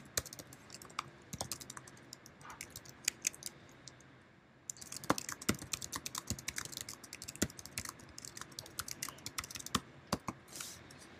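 Typing on a computer keyboard: quick runs of light key clicks, with a short pause a little after four seconds in before the typing picks up again.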